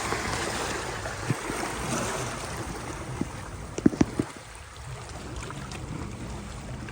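Sea water washing and lapping against the shore in an even wash, broken by a few sharp knocks: one or two single ones, then three close together about four seconds in, the loudest sound.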